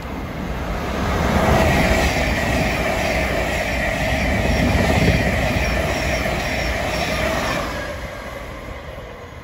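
Thameslink Class 700 electric multiple unit passing through the station, building up over the first second or so, staying loud for about six seconds, then fading as it moves away. A steady electric whine sits over the rumble of the wheels on the rails.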